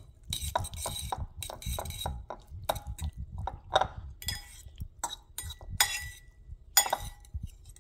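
Metal fork clinking and scraping against a bowl while tossing noodles, a dozen or so irregular strikes with a brief ring. The strikes thin out near the end.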